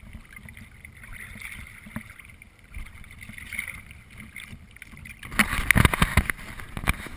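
Faint hiss of wind and water against a waterproof action-camera housing. About five seconds in, a quick run of loud knocks and thumps starts right at the housing as the camera is grabbed and handled.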